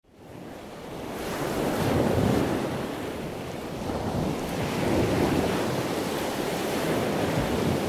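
Ocean surf rushing and breaking, a steady wash of waves that swells about two seconds in and again around five seconds.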